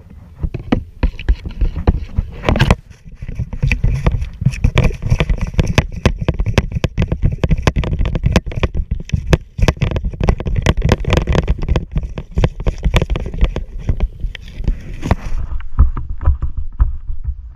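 Slime being stirred and folded in a bowl with a spatula: a dense run of sticky clicks and squelches over a steady low rumble, thinning out near the end.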